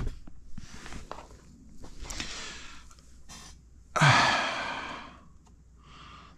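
A man's long, heavy sigh about four seconds in: a breathy exhale that starts with a short voiced note and fades away. Before it come soft breaths, rustling and a few small clicks.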